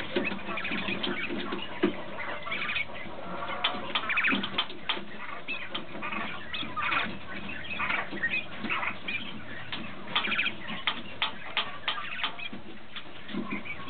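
Rosetta quail giving many short, high chirps and soft trills, with scattered sharp taps.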